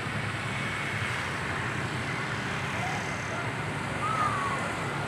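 Steady street traffic noise, with motorbikes and cars passing along the road, picked up by a phone's microphone.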